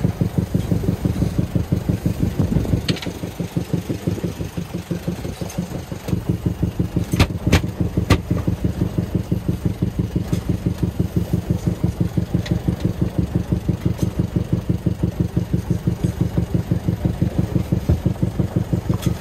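A sailing yacht's small inboard engine running at a steady low speed, heard loudly through the open cockpit floor hatch, with an even, regular beat. A few short clicks and knocks sound about seven to eight seconds in.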